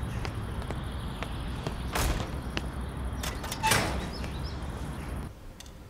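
Steady outdoor background noise with a few knocks and a short creak of a door, then a quieter room sound near the end.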